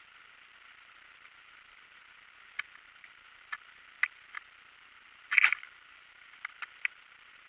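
Steady rushing of water falling over a river waterfall, with a scattering of sharp clicks or knocks in its second half, the loudest a short cluster about five seconds in.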